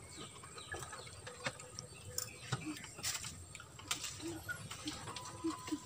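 A bird gives a few short, soft, low calls in the background, with faint clicks and smacks of someone chewing food.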